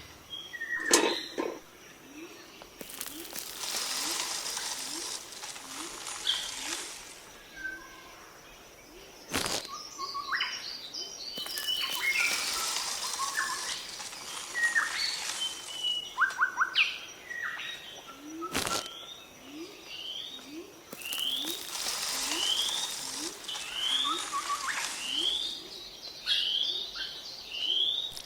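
Birds chirping and calling, with many short rising calls repeating through the stretch. Three spells of hiss and two sharp clicks sound among the calls.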